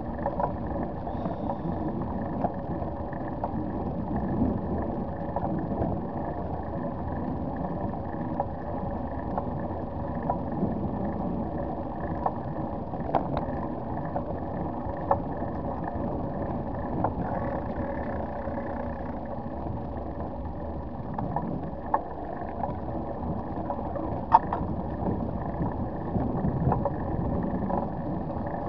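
Bicycle rolling along a brick-paved cycle path, heard through a handlebar-mounted camera: a steady rumble and rattle from the tyres and frame with a constant hum, broken by scattered sharp clicks over bumps, the loudest about three quarters of the way through.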